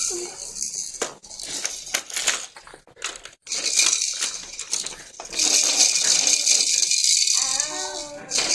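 Baby's plastic rattle toy shaken: scattered clicks and taps, then steady rattling for about three seconds from just past halfway. A short high voice sounds near the end.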